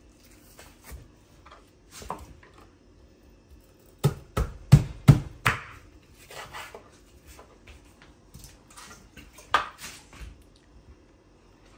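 Chef's knife chopping raw chicken on a wooden cutting board: four quick chops about four seconds in, with quieter sounds of the knife and hands working the meat around them and a single knock near the end.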